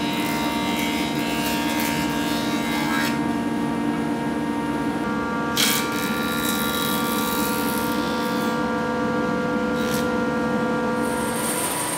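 Jointer running with a steady whine while a wooden board is pushed over its cutterhead. The cut is heard as a hiss over the first few seconds and again through the second half, with one sharp knock about halfway through.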